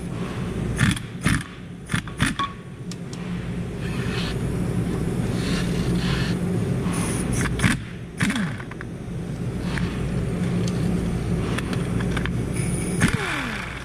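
Steady low mechanical hum from the workshop, with a few sharp metallic clicks and clanks of hand tools as a 14 mm mount nut is worked loose.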